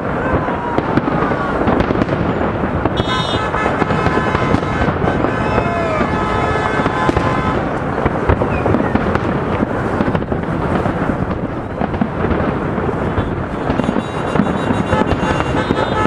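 Large fireworks display: a dense, continuous barrage of bangs and crackles, with held tones joining in about three seconds in and again near the end.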